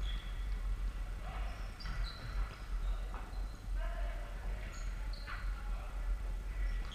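Futsal play on a wooden sports-hall floor: short high squeaks of players' shoes, with a few thuds of the ball being kicked, echoing in the hall.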